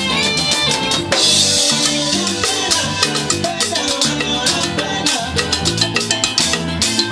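Live salsa band playing, with drum kit and percussion driving a steady rhythm over guitar, and a cymbal washing out about a second in.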